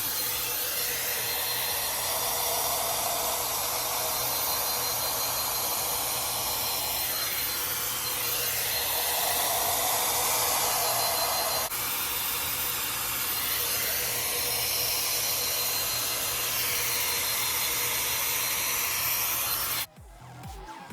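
Hair dryer with a concentrator nozzle blowing on damp hair: a steady rush of air whose tone rises and falls as it is moved about. It cuts off suddenly near the end.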